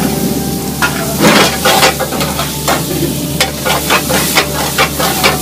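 Vegetables and masala sizzling in hot oil in a kadai while a spatula stirs and scrapes against the pan in quick repeated strokes.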